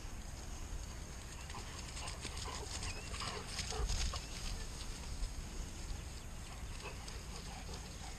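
Two dogs playing together, with short dog vocal sounds coming mostly in the middle few seconds over a steady low rumble.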